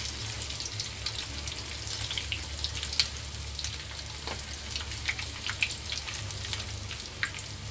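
Breaded chicken drumsticks deep-frying in a wok of hot oil: a steady sizzle with frequent sharp crackles and pops.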